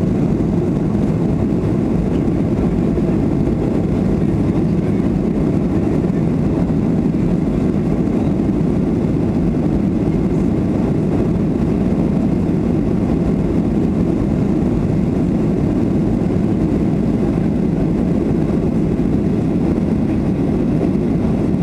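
Steady cabin noise of a Boeing 737-300 climbing out after takeoff: the CFM56-3 turbofans and the rush of air past the fuselage, heard from inside the passenger cabin as an even, low rumble that does not change.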